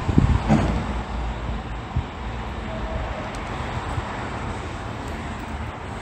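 Steady outdoor vehicle rumble with a broad background noise, and a brief louder bump just after the start.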